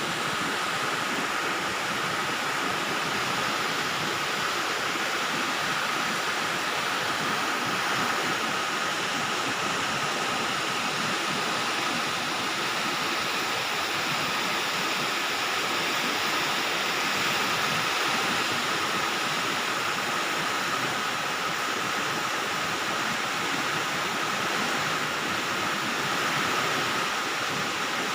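Heavy downpour of rain falling steadily, an even hiss that barely changes.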